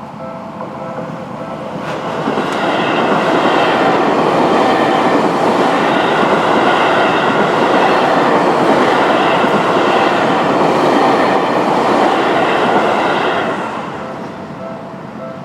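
Seibu Shinjuku Line electric commuter train passing over the level crossing: the noise of wheels on rails builds over the first few seconds, stays loud for about ten seconds, then drops off. The crossing's warning bell rings steadily before and after, under the train.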